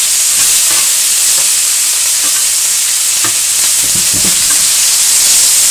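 Bacon pieces sizzling as they render their fat in a hot stainless-steel skillet: a steady hiss of frying. A few light knocks come through as the pieces are stirred in the pan.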